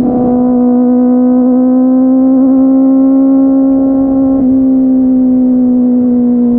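Kawasaki ZX-25R SE's 249 cc inline-four engine, through a Yoshimura R55 slip-on exhaust, running at high, nearly steady revs: a loud, high-pitched drone whose pitch dips slightly about four and a half seconds in.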